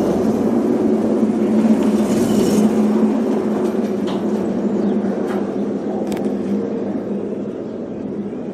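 Shweeb pedal-powered pod rolling along its overhead metal monorail track: a steady rumble with a low hum, fading gradually toward the end.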